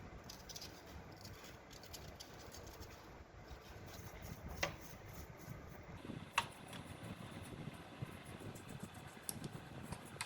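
Scattered light clicks and scratching, as of small objects being handled, with two sharper clicks about four and a half and six and a half seconds in.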